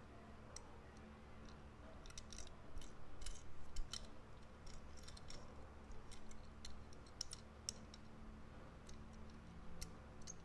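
Small toy Mitsuoka Orochi car handled in the fingers: a scatter of light clicks and taps from the toy and the fingers on it, busiest and loudest a few seconds in, over a faint steady low hum.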